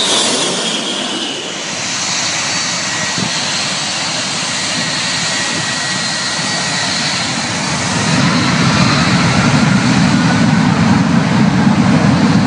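A jet airliner passing low overhead on landing, its engine whine dropping in pitch as it goes by, then steady jet engine noise. About two-thirds of the way through, a louder, deeper jet engine rumble builds up.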